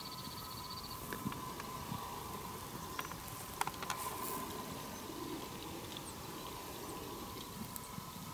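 Quiet outdoor ambience of dry hillside scrub: faint crackling and rustling, a few sharp clicks about three to four seconds in, and a faint steady high whine underneath.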